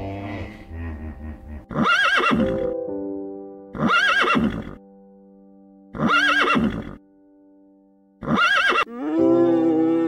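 Horse neighing: four short, loud calls about two seconds apart, each rising and falling in pitch, then a longer, wavering whinny near the end. Background music of sustained held chords plays underneath.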